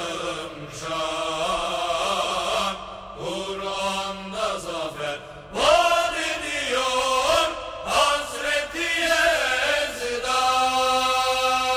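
A solo voice chanting a slow melody with sliding, wavering pitch in long phrases, settling into a steady held note near the end.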